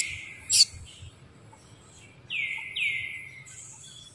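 Forest bird calling: a falling whistled note at the start, a sharp click about half a second in, then two quick notes that each drop in pitch about two and a half seconds in, over a faint high insect hiss.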